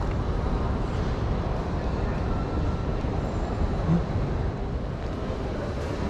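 Steady low rumble and hubbub of a large train-station concourse, with a brief low thump about four seconds in.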